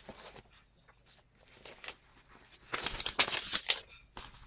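Plastic bubble-wrap packaging crinkling and rustling as it is handled, with light scattered rustles and a louder, denser stretch of about a second near the end.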